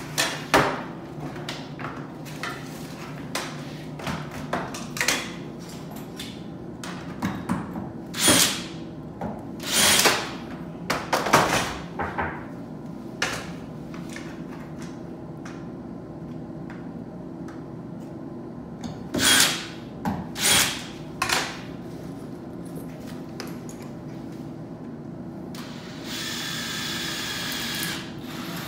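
Sharp clacks and knocks as a plastic paper towel dispenser housing and its metal mounting bracket are handled and set against the wall. Near the end a cordless drill runs steadily for about two seconds, boring into the wall at the bracket, then stops.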